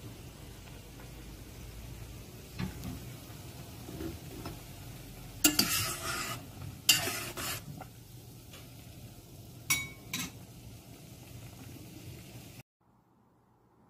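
Dumpling soup bubbling at the boil in a stainless steel pot, while a metal spoon stirs and scrapes against the pot's sides in a few loud short bursts midway. The sound cuts off suddenly near the end.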